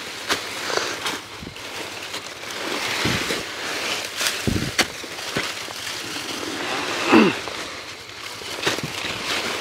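Footsteps crunching and scuffing through dry fallen leaves, with irregular rustles, a low thump about four and a half seconds in, and a short swish a little after seven seconds.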